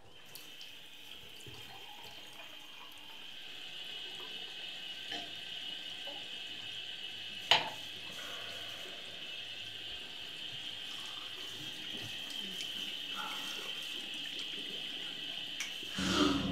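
Bathroom sink tap running steadily into the basin, growing a little louder over time. A single sharp click about halfway through.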